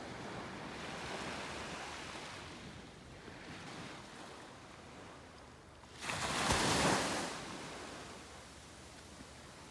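Small sea waves breaking and washing up a sandy beach, with a steady hiss of surf. One louder wave rushes in about two-thirds of the way through and then fades.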